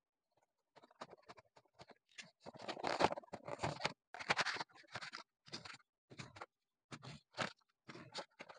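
A cardboard toy-car box being cut and torn open and its clear plastic blister tray pulled out: a run of scrapes, scratches and crinkles, loudest and most continuous between about two and a half and four and a half seconds in.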